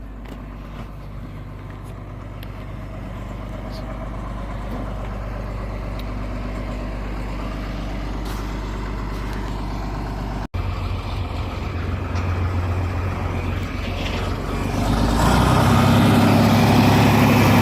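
Diesel engine of heavy farm equipment running steadily, with a sudden break about two-thirds of the way through, after which it is louder, and louder again near the end.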